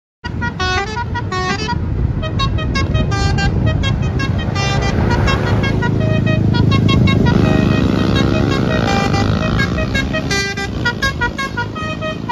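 Basuri telolet musical bus horn playing a quick tune of short toots, starting suddenly, with sliding notes in the middle, over a low engine rumble.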